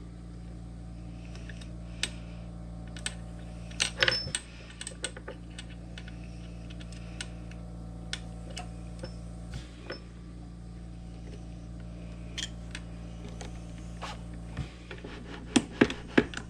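Scattered light metallic clicks and taps of hand tools and small metal parts being worked on a Framon key machine, bunched about four seconds in and again near the end, over a steady low hum.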